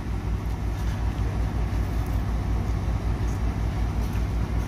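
Truck-mounted crane's diesel engine running steadily as it hoists a steel lattice section: a low, even rumble.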